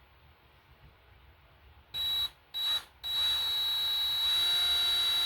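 Electric drill whining as it drills out a broken bolt in the engine block with a reverse drill bit. It gives two short trigger blips about two seconds in, then runs steadily from about three seconds, with a lower tone added as the bit bites about a second later.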